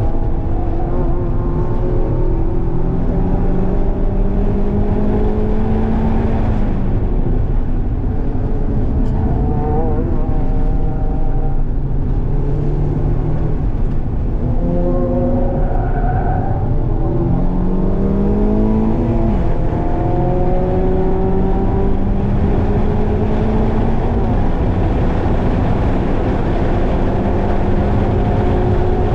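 Mazda MX-5's four-cylinder engine heard from inside the cabin while lapping a race track, pitch climbing as it accelerates hard and dropping back as it slows, several times over.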